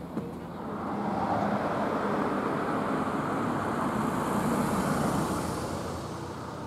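A vehicle passing by: a rushing noise that swells about a second in, is loudest around four to five seconds, then fades away.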